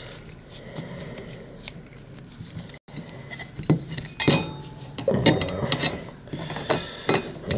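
Light metallic clinks and rattles as the dishwasher's sheet-metal electrical junction box and its wires are handled, with several sharper clicks and clatters in the second half.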